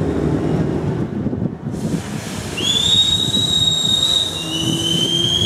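Supersport racing motorcycles running: a low engine rumble, then from about halfway a high, nearly steady whine comes in, with a second overlapping whine near the end.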